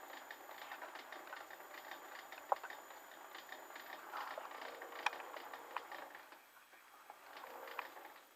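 Clarke CL500M mini lathe cutting a left-hand thread on a thin rod: faint crackling and light ticking, with two sharper clicks about two and a half and five seconds in.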